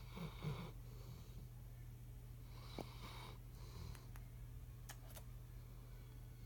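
Yellow Labrador retriever snoring: one snoring breath at the start and another about halfway through, over a steady low hum, with a few faint clicks.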